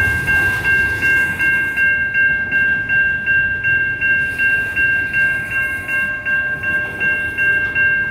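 Type 3 Safetran electronic crossing bell ringing, a steady high ding repeating about three times a second, over the rumble of coal hopper cars rolling through the crossing.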